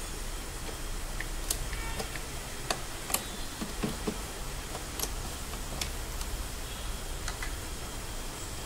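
Scattered light plastic clicks and taps, irregular and a second or so apart, as the mass air flow sensor's connector and housing on the air intake are worked loose by hand and with a screwdriver.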